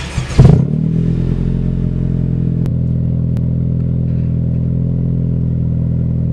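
Logo intro sound effect: a sharp loud hit about half a second in, then a steady low droning hum that holds without changing pitch.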